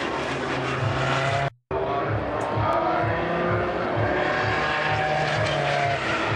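Endurance race cars' engines running at high revs as they pass, their pitch sliding down. The sound cuts out briefly about one and a half seconds in, then another car's engine is heard.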